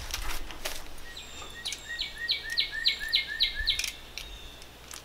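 Northern cardinal singing a run of about eight repeated slurred whistles, roughly four a second, lasting about two seconds. A few sharp clicks come before the song.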